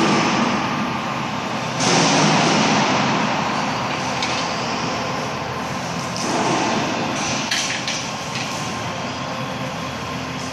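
Electromechanical three-roll plate bending machine running, its motor and rolls giving a steady mechanical noise with a low hum. The noise grows louder about two seconds in and again around six seconds, with a few short clicks near eight seconds.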